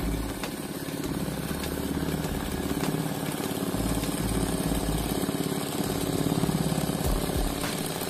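Sewing machine running steadily at speed, its needle stitching continuously through embroidered fabric.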